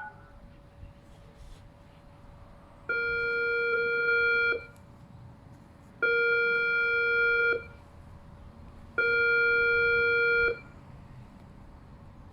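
Siren loudspeaker sounding a pulse test signal: three long beeps of about a second and a half each, roughly three seconds apart, each a low and a high tone sounding together.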